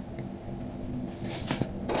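A short scratchy stroke on paper a little over a second in, a light tap just after, and another stroke starting near the end, over a faint low steady hum.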